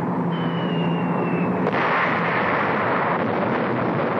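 An aircraft engine drones under a high whistle that falls slightly in pitch; about a second and a half in, an explosion breaks in and carries on as a steady, dense rumble of blasts.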